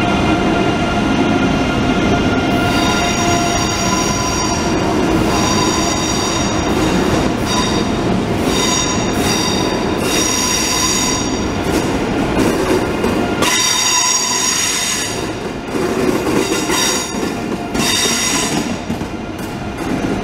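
ICE high-speed train rolling slowly past the platform, its wheels squealing on and off in high tones over the steady rumble and hum of the train.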